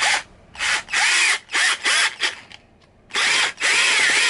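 12-volt MIKASO cordless drill driver driving a screw into a wooden board. It is run in about six quick trigger bursts, its motor whine rising and dropping with each, then, after a short pause, in two longer runs as the screw goes in.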